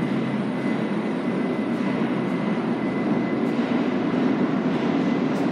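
Steady rumble of a subway train running through the station, growing a little louder near the end, with a thin high tone held above it.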